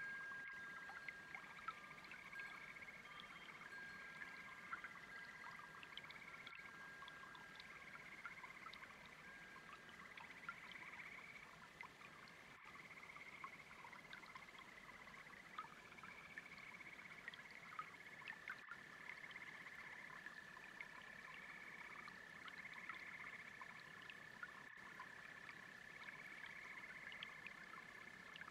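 Faint chorus of frogs and toads trilling steadily over the soft babble of a brook, with small gurgling ticks from the water.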